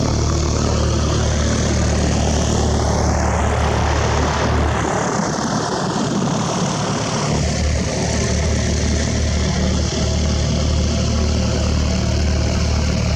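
Propeller airplane's engine running as it passes close by, with a sweeping change in the sound around the middle as it goes past.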